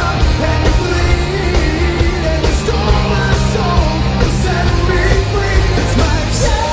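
Rock band playing live with a singer, over heavy bass and drums.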